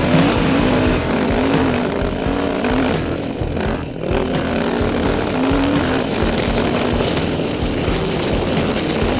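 Trail bike engine running under load as it climbs a rough dirt track, its pitch rising and falling with the throttle, heard from a helmet-mounted camera.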